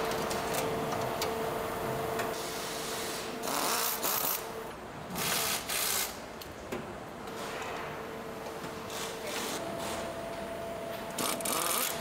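Factory assembly-work noise: mechanical rubbing and clicking over a faint steady hum, with a few short louder bursts of hiss about four to six seconds in.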